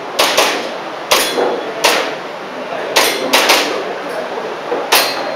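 Airsoft pistol firing about eight sharp shots in quick pairs and singles, with uneven gaps between strings.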